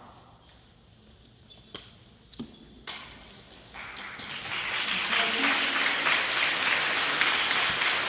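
A few sharp taps, then from about four seconds in, applause from a seated audience swells and keeps going.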